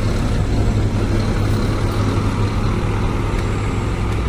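Scania K360iB coach's rear-mounted diesel engine running steadily as the bus pulls away at low speed, with a deep hum.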